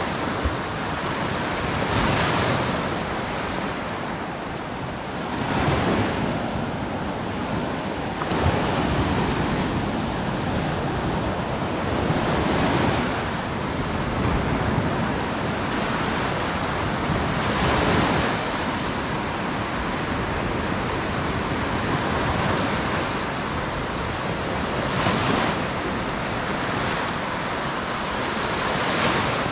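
Sea waves breaking on a sandy beach, the surf swelling and washing up in surges every few seconds.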